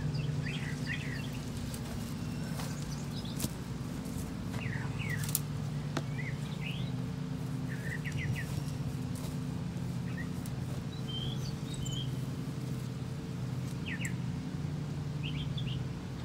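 Songbirds chirping in short scattered calls over a steady low engine drone, with a few light clicks.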